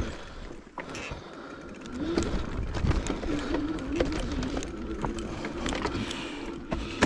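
Bicycle rolling over a rough, stony trail: steady tyre and ride noise with scattered rattles and knocks from the bike.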